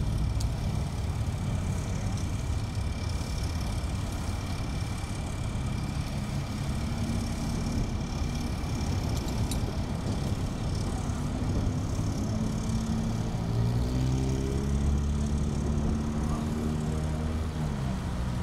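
Road traffic and idling vehicle engines, with one engine speeding up and passing about two-thirds of the way through. A thin steady high tone runs under it.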